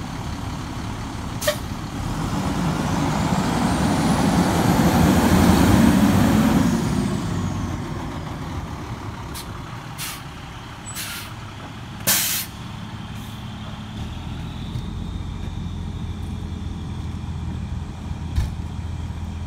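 Fire engine's diesel engine pulling away, growing louder over the first several seconds and then fading as it moves off. About twelve seconds in there are short hisses of the air brakes as it stops, loudest at the last, and then a steady idle.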